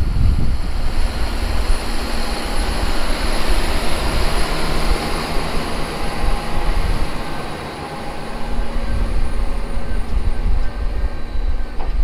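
John Deere 9230 four-wheel-drive tractor's diesel engine running steadily under load while it pushes and packs chopped ear corn on a silage pile with its front blade. It eases briefly past the middle, then comes back up.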